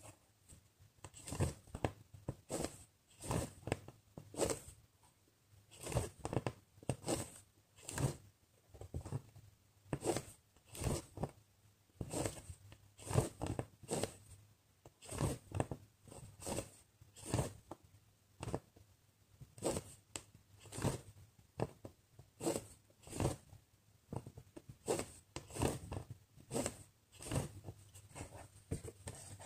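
A cross-stitch needle punching through the fabric, with embroidery floss drawn through after it: short scratchy rasps repeating about once a second, often in pairs, as stitch follows stitch.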